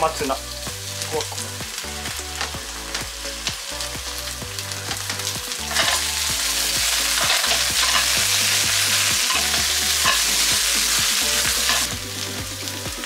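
Onion and carrot slices sizzling in lard in a frying pan, with scattered clicks of stirring. About six seconds in, komatsuna greens are added and the sizzle turns much louder and hissier, then drops back near the end.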